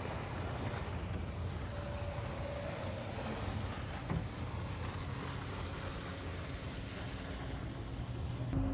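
Steady rush of wind and water on open water, with wind buffeting the microphone.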